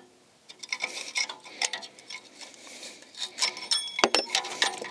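Steel hand tool working the rusty hold-down spring and pin of a rear parking brake shoe, a string of small irregular metallic clicks and scrapes. A brief high metallic squeal comes about three and a half seconds in, followed by a few sharper clicks.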